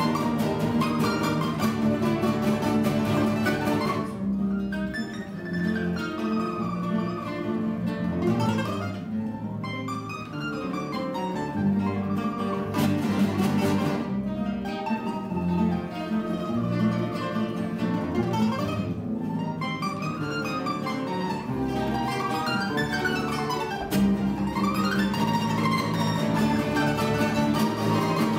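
Plucked-string ensemble of domras and classical guitars playing a lively Spanish-style dance. Dense, rapid tremolo picking at the start and again near the end, with a lighter middle passage of quick rising and falling runs over the guitars' accompaniment.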